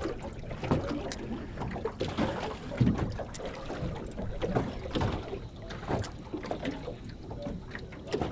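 Small aluminium dinghy at rest on the water, with water lapping at the hull and irregular light knocks and clatter in the boat, and wind on the microphone.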